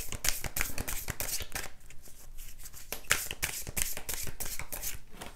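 A deck of oracle cards shuffled by hand: a rapid patter of card flicks, easing off briefly about two seconds in.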